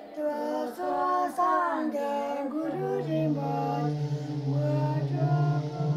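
A high singing voice carrying a flowing melody. About two and a half seconds in, a steady low drone enters beneath held notes.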